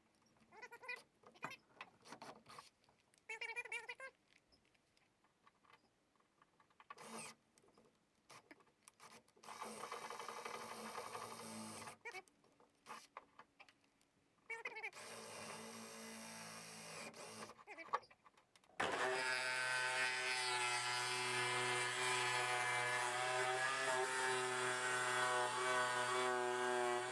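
Scattered short knocks and handling noises of work, then about two-thirds in an electric power tool switches on and runs steadily at an even pitch.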